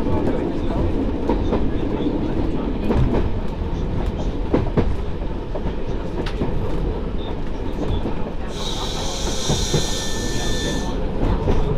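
Derby Lightweight diesel railcar running along the line: a steady diesel rumble heard from the cab, with the wheels clicking over rail joints now and then. A hiss lasts about two seconds near the end.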